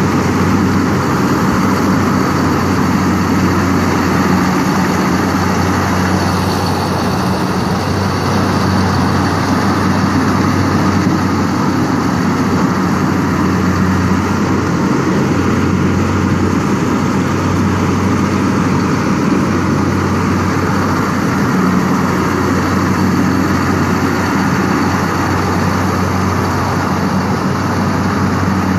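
Corn harvesting machine's engine running at a steady speed, a loud, even drone with no change in pitch.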